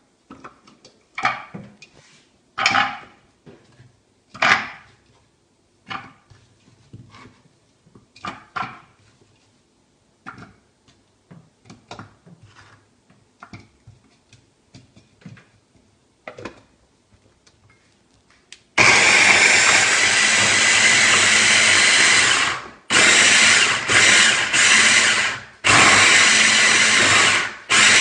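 Scattered knife knocks on a cutting board as onions are cut, and onion pieces dropped into a plastic chopper bowl. About two-thirds of the way through, an electric mini chopper (a hand-blender motor on a chopper bowl) starts running loudly as it minces the onions, pulsed on and off with a few short stops.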